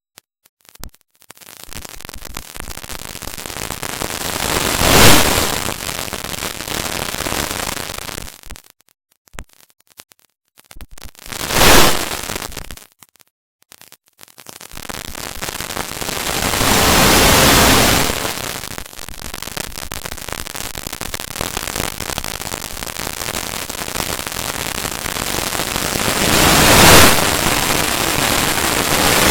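Harsh, static-like hiss that swells and fades, with loud peaks about five and twelve seconds in, a broader swell a little later, another peak near the end, and brief dropouts in between.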